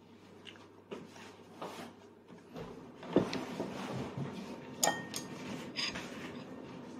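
A child's small metal fork knocking and scraping against a plate in a few scattered clicks and knocks, the loudest about three seconds in, with a short ringing click near five seconds.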